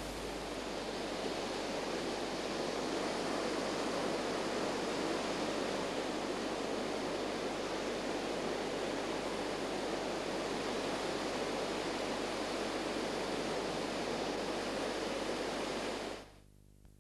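Rough sea surf: a steady rush of waves breaking, cutting off suddenly near the end.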